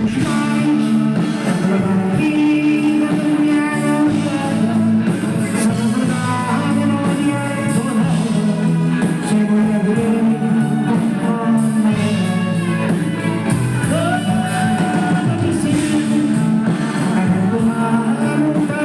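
A live band playing a song, with a singer's voice over the instruments, loud and continuous.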